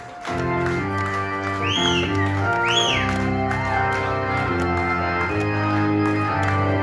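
Live band instrumental passage: sustained organ-sounding chords on a stage keyboard over drums, the chord changing every second or so, with two short high notes that bend up and back down about two and three seconds in.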